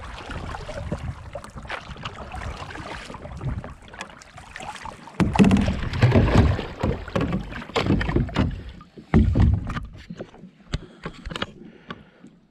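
Wind and water noise at a stand-up paddleboard's nose. From about five seconds in comes a run of heavy knocks and bumps as the board-mounted camera is handled and the paddle is set down across the board.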